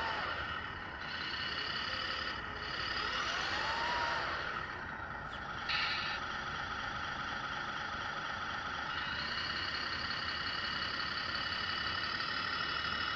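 Radio-controlled model semi-truck driving and manoeuvring with a steady high whine from its drive. A pitch rises and falls about three to four seconds in, and a short burst of noise comes about six seconds in.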